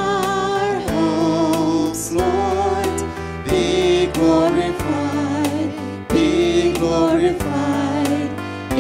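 Worship song: a man and women singing a melody in long held, wavering notes into microphones, over instrumental accompaniment.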